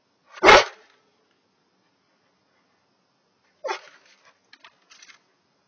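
A Rottweiler gives one loud, excited bark about half a second in. About three seconds later comes a shorter, quieter call from the dog, followed by a few faint clicks.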